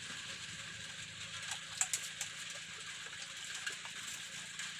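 Steady outdoor hiss with a few sharp clicks about two seconds in, then water splashing from a mug into a tractor tyre casing near the end.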